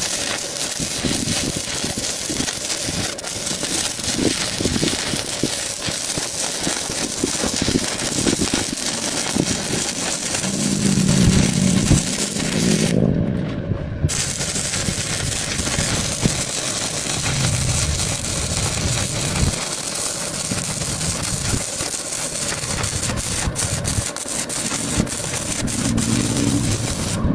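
Electric arc welding: a steady crackling sizzle from the arc that breaks off for about a second about halfway through, then starts again. A low hum swells beneath it at times.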